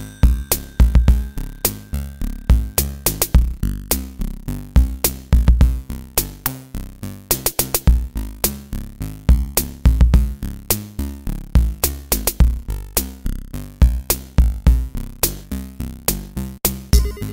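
Background music: an 8-bit chiptune-style electronic track with a steady drum-machine beat over changing synth bass notes.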